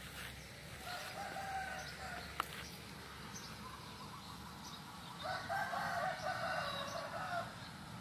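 A rooster crowing twice: a shorter crow about a second in, then a longer, louder one from about five seconds in. A single sharp click comes between them.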